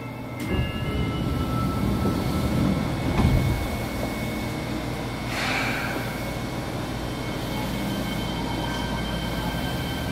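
Fukuoka City Subway 2000 series train heard from inside the car as it brakes into a station and comes to a stop: wheel and underfloor rumble with a steady whine, and a short hiss of air about halfway through.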